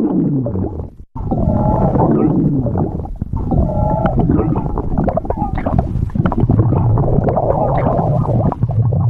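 Human stomach growling: long gurgling rumbles with a wavering, gliding pitch, breaking off briefly about a second in and then running on.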